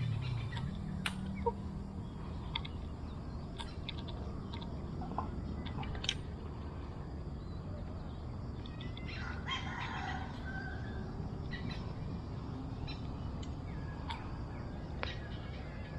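Outdoor ambience: a steady low rumble with scattered short bird calls and a brief flurry of chirping about nine seconds in.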